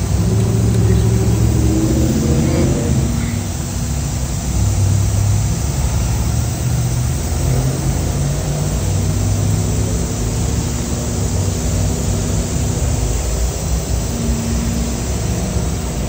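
Heavy rotator tow truck's diesel engine running at raised revs to power its winch as the cable drags an overturned semi trailer; the engine note shifts up and down with the load.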